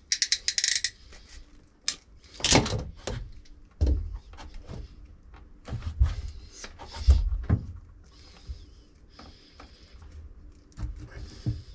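A wire crimping and stripping tool clicking rapidly on electrical wire in the first second, followed by scattered knocks, low thumps and rustling as the wires, hoses and tool are handled.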